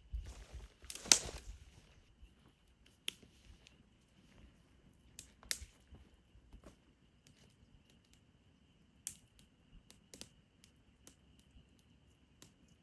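Scattered small clicks and knocks, with a brief louder rustle about a second in, over a faint steady high-pitched tone.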